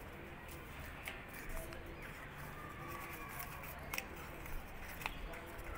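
Folded origami paper units rustling and creasing as a unit's flaps are slid into the pockets of the others, with a few sharp paper crackles.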